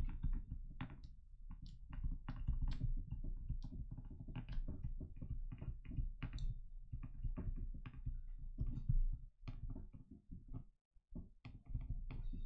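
Stylus tapping and scratching on a tablet screen during handwriting: a quick, irregular run of small clicks over a low, dull handling rumble, with a brief lull about ten and a half seconds in.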